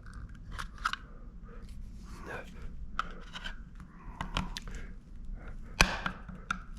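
Small clicks, taps and scrapes of an external hard drive's parts being pried and worked apart by hand with a tool, with one sharper knock a little before the end.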